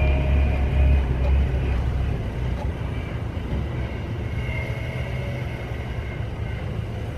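Sapporo streetcar sasara broom snow-clearing car running along the track away from the listener. Its low rumble fades over the first couple of seconds, with a faint high whine above it, and it ends as a lower steady rumble.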